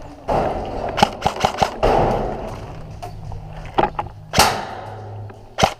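Airsoft electric rifle firing a quick string of sharp shots, about four or five a second, about a second in, with single shots later and another rapid string starting near the end.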